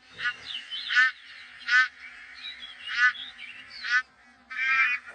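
A flock of bar-headed geese honking in flight: loud nasal calls about once a second, with fainter calls from other birds of the flock in between and several overlapping calls near the end.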